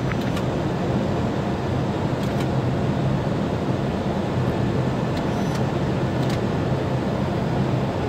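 Steady flight-deck noise of an Airbus A321 airliner descending for landing: an even rush of air and engine hum, with a few faint clicks.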